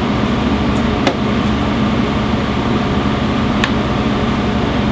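Steady, loud hum of kitchen ventilation machinery, with two sharp knocks of a chef's knife on the cutting board, about one second in and again near three and a half seconds, as garlic is chopped.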